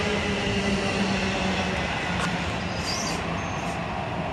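NJ Transit bilevel commuter train rolling away along the platform: a steady rumble of wheels on rail with a low hum that fades about halfway through, the whole sound slowly getting quieter.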